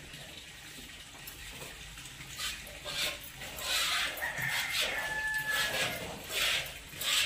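Jets of milk squirting into a small pail as a water buffalo is milked by hand. They come as rhythmic hissing squirts, one or two a second, starting about two seconds in.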